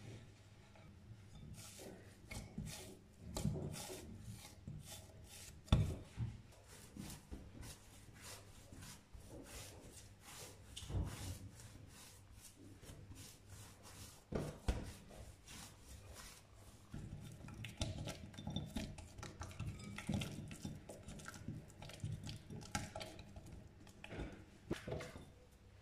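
Bread dough kneaded by hand on a work surface: irregular soft knocks and handling strokes, with two louder thumps about six seconds and fifteen seconds in. Near the end the dough is pressed into a glass bowl.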